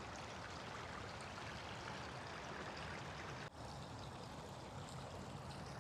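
Steady rush of running water from a garden stream, with a brief dropout about three and a half seconds in.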